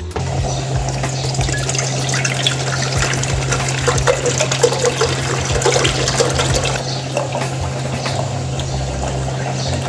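Milk being poured in a steady stream from a plastic jug into a wide aluminium pot, splashing into the milk already in it.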